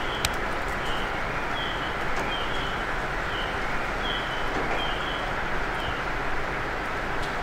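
KiHa 40-series diesel railcar idling at a standstill, a steady engine drone. A series of short high chirps repeats irregularly over it.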